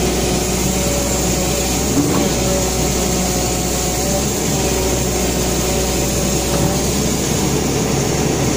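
JCB JS205 excavator's engine running steadily, heard up close, on its first test run after the machine was submerged in peat.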